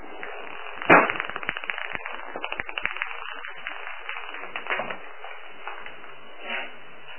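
A plastic ping-pong ball batted by a kitten across a wooden parquet floor: a sharp click about a second in, then a quick run of light clicks as it skitters and bounces, thinning to scattered taps, with a few more taps later.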